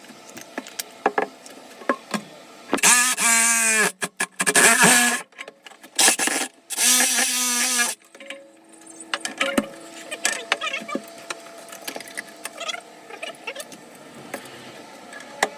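A small electric motor, such as a power tool's, running in a few short bursts, its pitch bending as it spins up. Soft clicks and knocks of hand work come in between.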